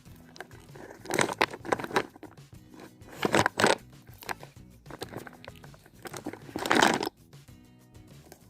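Homemade slime being squeezed and squished by hand, making three loud crackling squelches, the last cutting off suddenly near the end, over faint background music.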